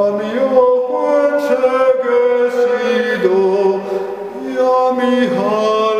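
A man's unaccompanied voice singing or chanting long held notes with no clear words, sliding from one pitch to the next a few times.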